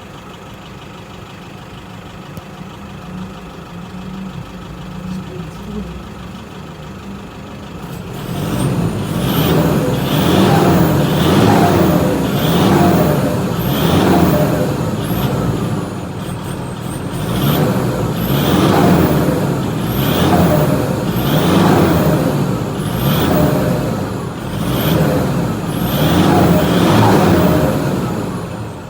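Toyota Fortuner's 2KD four-cylinder turbodiesel on its stock exhaust idling, then revved in about a dozen quick throttle blips starting about eight seconds in. Each blip brings a rising turbo whistle, and each lift-off brings the turbo flutter as the boost bleeds back.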